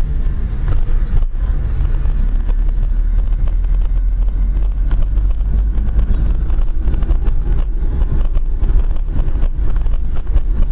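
Steady low rumble of a car driving, picked up by a dashcam microphone inside the car, with frequent small clicks and crackles over it.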